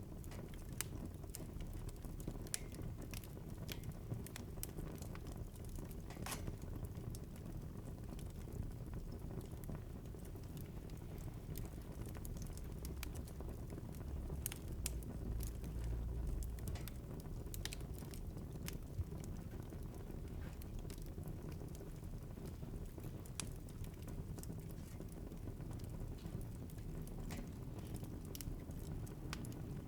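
Wood fire burning in a fireplace: a low steady rumble of flames with irregular sharp crackles and pops from the burning logs.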